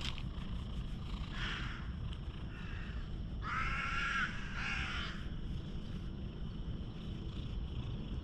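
Crow cawing: a fainter caw a little after a second in, then two loud drawn-out caws near the middle. A steady low purr runs underneath from a tabby cat being stroked close to the microphone.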